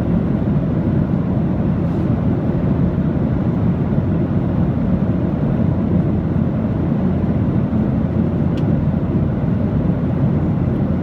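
Steady aircraft noise: an even, unbroken deep rumble with little high-pitched content, holding level throughout.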